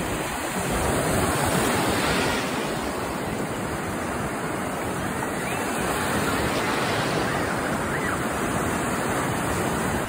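Sea surf breaking and washing onto the shore, a steady rushing of waves.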